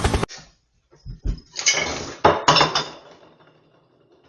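A run of clattering crashes, several sharp hits close together about a second in and again near the middle, then dying away.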